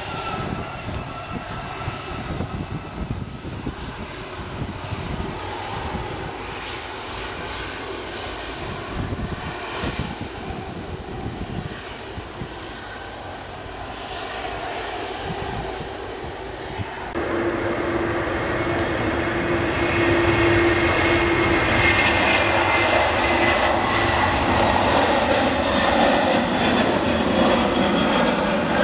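Jet engines of an Airbus A330-200 on the runway: a steady rumble with faint falling whines. About two-thirds of the way through it changes abruptly to a second Airbus A330-200 taking off at take-off thrust, louder, with a steady hum and a high whine over the roar.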